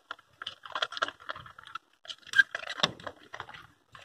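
Homemade glue slime being stirred in a pot: quick, irregular sticky clicks and scrapes of the stirrer against the container as the mixture thickens and begins to pull away from the sides.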